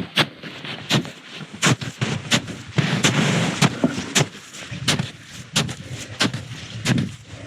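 A hiker's footsteps while climbing the mountain, sharp footfalls at a steady walking pace of about one and a half steps a second.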